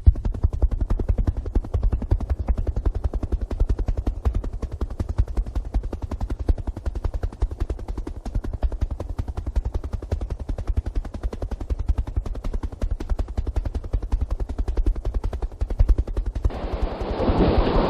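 Helicopter rotor chopping in a fast, steady pulse. Near the end it cuts suddenly to a louder, even rushing noise.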